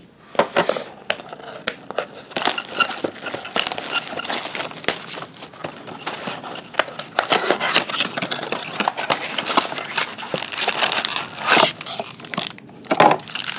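Plastic shrink wrap crinkling and tearing as a cardboard trading-card box is unwrapped and opened, then foil card packs crinkling as they are slid out of the box. Busy, continuous crackle and rustle with many small sharp snaps.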